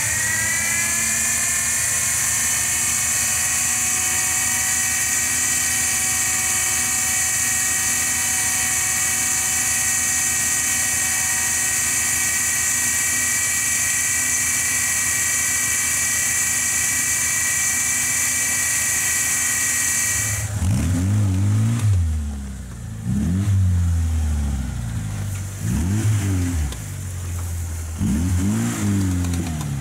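Electric winch on a Lada 4x4's front bumper reeling in its cable under load: a steady whine that rises in pitch as the motor starts, then holds. About twenty seconds in it stops, and an engine is heard revving up and down several times.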